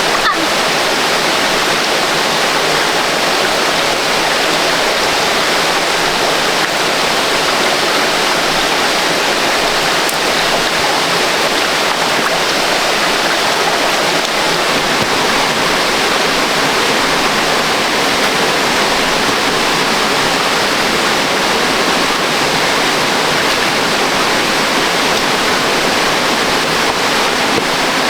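Waterfall rapids rushing: a loud, steady wash of water that holds without a break.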